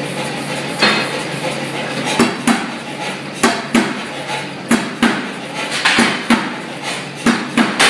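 Blacksmith's power hammer running with a steady hum, then, from about two seconds in, striking a red-hot steel bar in quick repeated blows, about three a second, as the bar's end is drawn to a taper.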